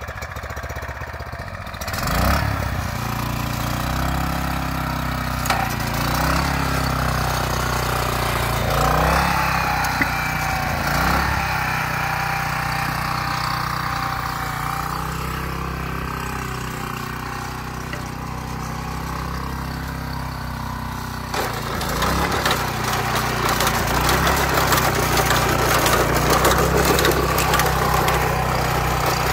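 Mitsubishi GM132 4 hp single-cylinder OHV petrol engine on a walk-behind mini reaper, running steadily. It is revved up briefly a few times, and from about twenty-two seconds in it runs louder and faster.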